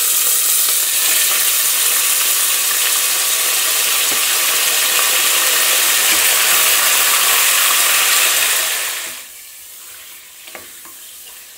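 Mutton pieces sizzling loudly in hot ghee in an aluminium pressure cooker. About nine seconds in the sizzle drops abruptly to a much quieter one, with a couple of light taps from a wooden spatula stirring the meat.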